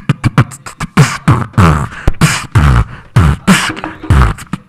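Beatboxing: a person making drum sounds with the mouth, deep kicks that drop in pitch alternating with hissing snare and hi-hat sounds in a steady groove.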